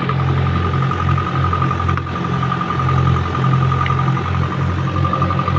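Engine of a small 'othok' fishing boat running steadily with an even chugging beat, a steady high whine over it.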